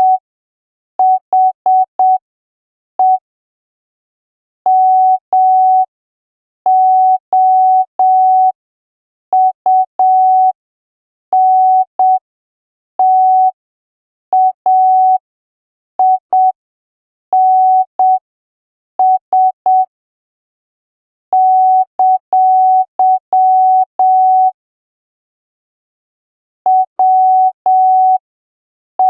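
Morse code practice tone at about 5 words per minute: a single clean beep keyed on and off in short dots and longer dashes, with longer silent gaps between letters and words.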